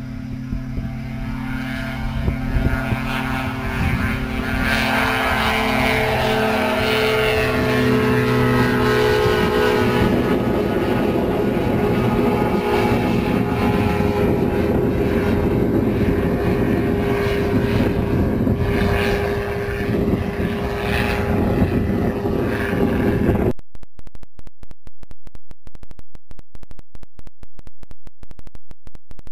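Caprice 21 ultralight's engine and propeller at takeoff power, a pitched drone growing louder as it runs along the strip and lifts off, then a loud steady drone as it climbs past. About 23 seconds in this gives way abruptly to a harsh, even, rapidly pulsing buzz.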